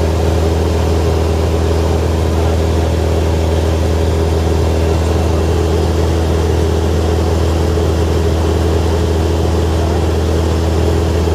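Small propeller plane's engine and propeller running steadily in cruise, heard from inside the cabin as an even, unchanging drone.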